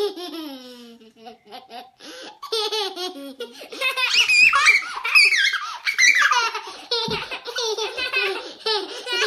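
Young children laughing and giggling, breaking into louder, high-pitched shrieks of laughter midway through.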